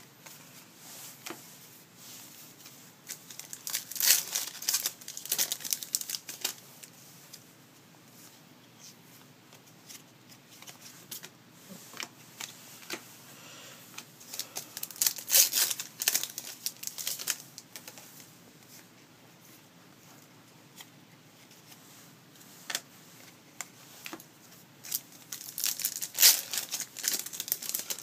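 Trading card pack wrappers being torn open and crinkled by hand, in three bouts of crackling about 4 s, 15 s and 26 s in, with lighter clicks of cards being handled between.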